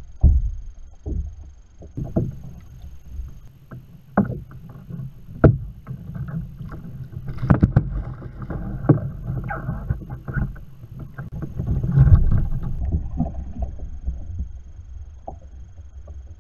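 Water splashing and sharp knocks against a plastic kayak hull as a hooked kingfish thrashes at the boat's side and is gaffed; the heaviest splashing comes about halfway through. A low rumble of wind on the microphone lies under it.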